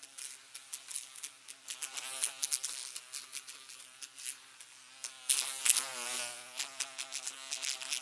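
Buzzing of an insect's wings, wavering in pitch and louder about five seconds in, mixed with many sharp clicks.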